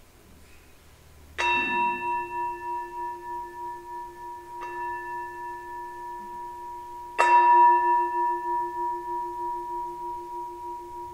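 Metal singing bowl struck three times, the second strike lighter. Each strike leaves a long ringing tone that fades slowly, with a slow wavering in the low note.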